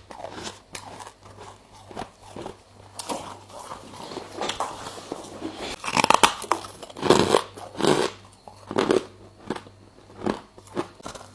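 Freezer frost being bitten and chewed, a run of crunches that grows louder about halfway through, then comes roughly once a second.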